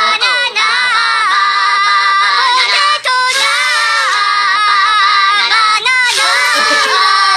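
A high-pitched singing voice from a song being played, with long held notes that waver in pitch and short gaps between phrases.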